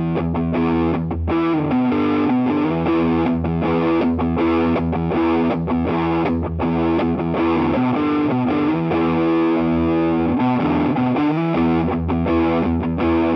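1973 Greco Les Paul electric guitar played with heavy distortion: held chords ringing out, moving to new chords a few times.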